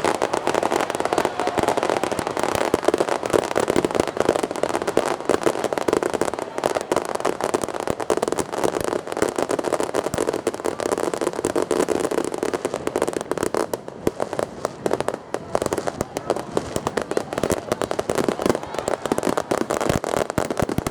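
Japanese fireworks (hanabi) going off in a continuous, dense barrage of rapid bangs and crackles, thinning briefly a little past the middle.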